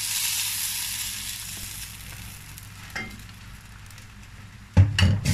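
Hot browned butter poured over a pot of cooked green beans and bulgur, sizzling sharply as it hits and dying away over about three seconds. A light knock comes about three seconds in, and two louder knocks near the end.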